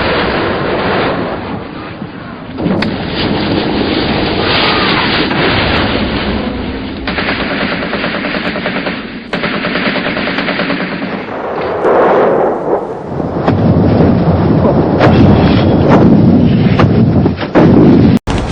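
Heavy combat gunfire: long machine-gun bursts and rapid shots run together with no break, growing louder over the last five seconds or so.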